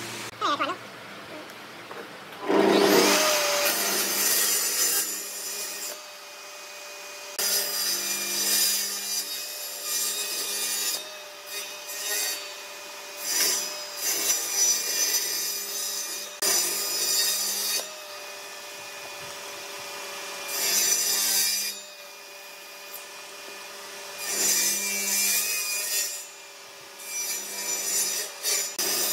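Benchtop table saw running steadily while a wooden board is fed through it, making a series of about eight short cuts as corners are trimmed off. Each cut is a louder burst of blade-through-wood noise over the steady whine of the motor.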